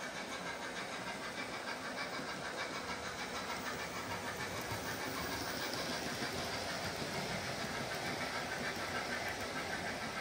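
OO gauge model trains running on the track: a steady, fast rhythmic clatter of small metal wheels over the rails and motor running, growing a little louder about halfway through as a rake of model Pullman coaches passes close by.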